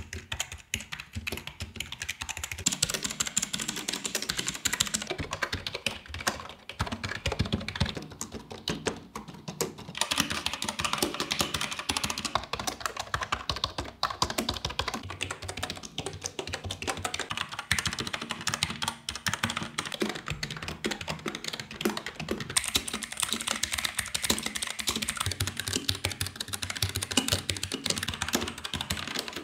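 Fast, continuous typing on a succession of computer keyboards, membrane and mechanical, rapid key clicks and clacks. The character of the clicking changes every few seconds as a different keyboard takes over.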